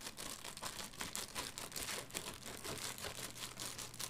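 Packaging crinkling as a parcel is opened by hand: a dense, irregular run of quick crackles.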